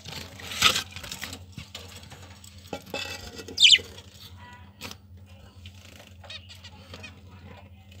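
A single sharp budgie chirp about three and a half seconds in, amid scrapes and light knocks of the clay-pot nest box being handled, over a steady low hum.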